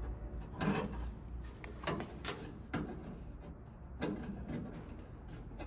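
A handful of light metallic clicks and knocks as a lock rod clip is fitted to the door latch mechanism inside a 1975 International Scout II door.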